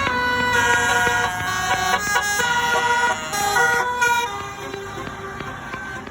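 Indonesian bus basuri (telolet) multi-tone horn playing a melody of quick stepping notes, really loud, turning quieter about four seconds in.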